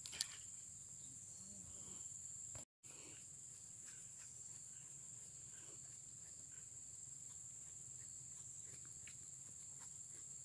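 Faint, steady high-pitched drone of insects in the riverside vegetation. A brief click comes just after the start, and the sound drops out completely for a moment a little under three seconds in.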